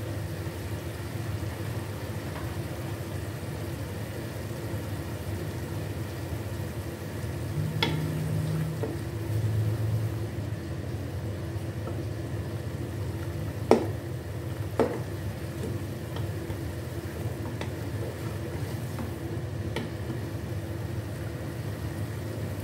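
Chicken pieces sizzling steadily in a pot of cooking liquid on a gas stove, stirred with a wooden spoon. Midway through, two sharp knocks about a second apart, typical of the spoon striking the pot.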